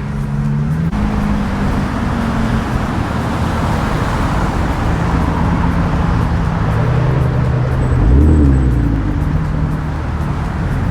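Car engine running with road and wind noise on the move in traffic, with one brief rev that rises and falls about eight seconds in.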